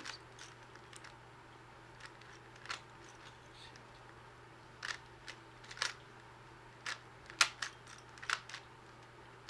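A 3x3 Rubik's cube being turned by hand through a last-layer move sequence: irregular sharp plastic clicks and clacks as the layers turn and snap into line, the loudest about seven and a half seconds in.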